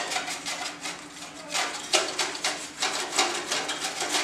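Brush bristles swept in quick repeated strokes over the metal rear panel and ports of a desktop computer case during dusting.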